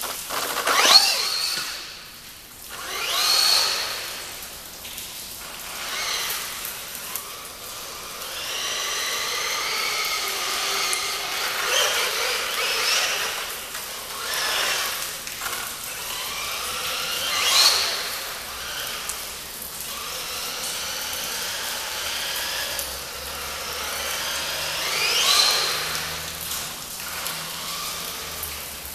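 L212 Pro RC truck's 2S brushless motor whining as it is driven, the pitch sweeping up sharply on bursts of throttle and falling away again. There are several such bursts, the loudest about a second in and again near 17 and 25 seconds, with a longer wavering run at full throttle in the middle.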